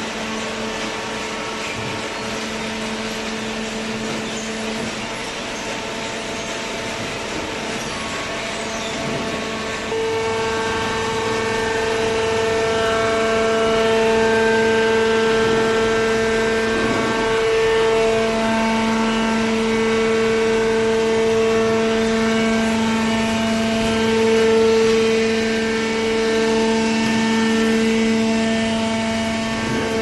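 Automatic hydraulic baler running: its electric motor and hydraulic pump give a steady hum with a held whining tone, growing louder about ten seconds in.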